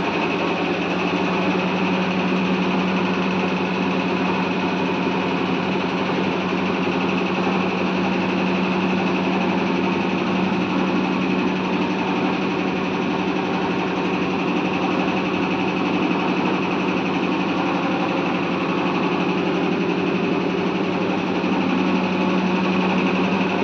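A steady machine hum at one constant pitch, with no change in speed or level.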